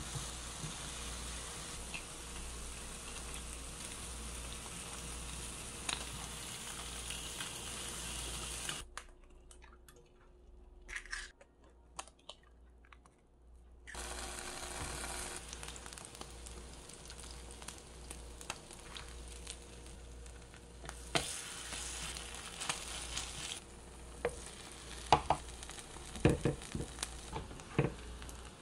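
Food sizzling in a three-section electric grill pan: kimchi, a Spam slice and fried eggs, then chive pancakes. The sizzling drops away for about five seconds in the middle. Near the end there is a run of sharp taps and clicks from chopsticks and a wooden spatula working against the pan.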